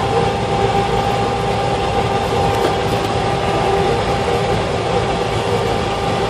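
Steady engine and road noise inside a bus cabin, with a constant low drone.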